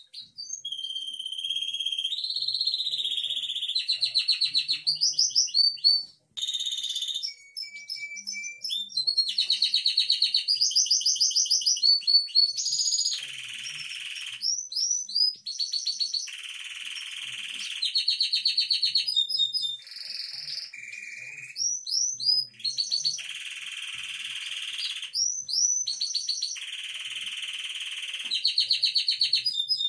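Domestic canary singing: a long run of rapid trills and whistled phrases, broken by short pauses.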